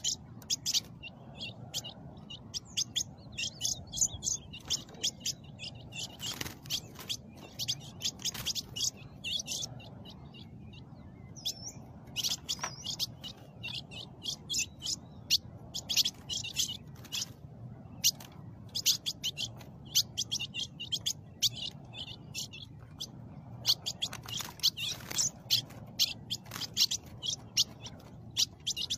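Small songbirds calling: short, sharp, high chirps repeated in quick runs, with brief pauses between runs, over a faint low background rumble.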